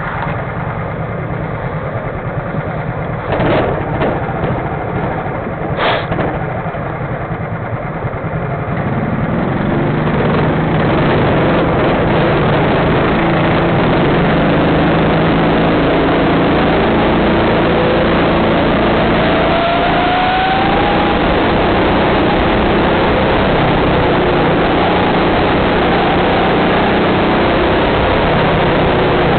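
Go-kart engine heard up close from a camera mounted on the kart, idling with two short knocks about three and six seconds in. About nine seconds in it revs up and gets louder as the kart pulls away, then keeps running at speed, its pitch rising and falling with the throttle.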